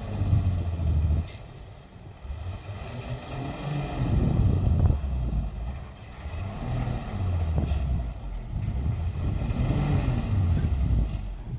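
Heavy diesel vehicle engine working under load, revving up and easing off in repeated swells a few seconds apart.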